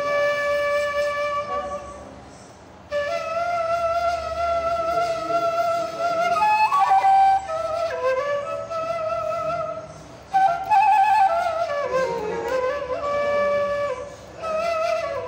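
Ney (nai), an end-blown cane flute, playing a slow melody in maqam Bayati: long held notes with slides between them, in phrases broken by short breath pauses about two, ten and fourteen seconds in.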